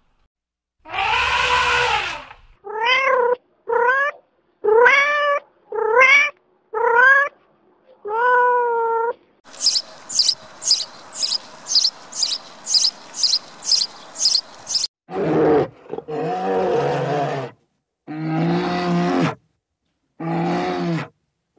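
A run of animal calls. A noisy call about a second in is followed by about seven short cries that rise and fall in pitch. House sparrows then chirp in quick, evenly repeated notes for about five seconds, and a few lower, drawn-out calls about a second long come near the end.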